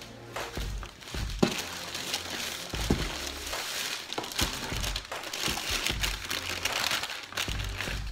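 Tissue paper crinkling and a cloth shoe bag rustling as a pair of sneakers is pulled out and unwrapped, with a few light handling knocks.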